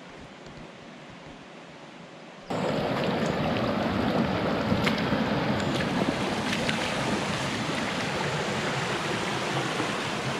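Heavy rain pouring down: a dense, steady hiss with scattered drop ticks. It cuts in abruptly about two and a half seconds in, after a faint quiet stretch.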